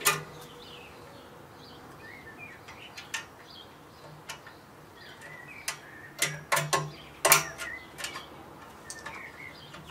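Light metallic clicks and ticks, irregular, with a cluster of louder ones around six to seven seconds in: a kamado grill's lid handle and its brackets being fitted over the mounting bolts and the nuts threaded on by hand. Faint bird chirps sound behind.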